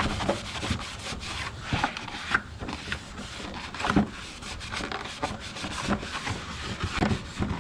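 Irregular rubbing and scraping strokes as the car's intake housing area is wiped clean by hand.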